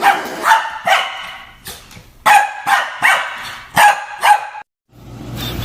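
A dog barking repeatedly in short, sharp barks, about six of them with a pause of about a second after the first two. The barking stops suddenly near the end.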